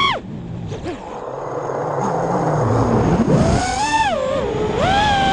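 FPV quadcopter's brushless motors and props whining, heard from the GoPro mounted on the quad, the pitch rising and falling with the throttle. The whine drops away sharply just after the start, leaving a rushing noise, then climbs back about three and a half seconds in and swings up and down again.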